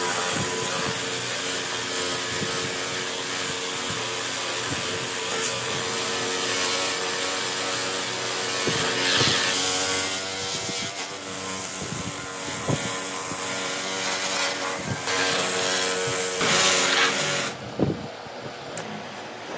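Hand-held electric grinder motor running steadily, its wire brush wheel and sanding disc scouring and sanding rough weathered wood with a loud scratchy hiss that swells as the tool bites. Near the end the scraping stops while the motor keeps humming.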